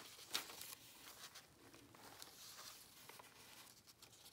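Faint rustling and a few soft taps of paper pages and lace being handled as a handmade journal is leafed through by hand; otherwise near silence.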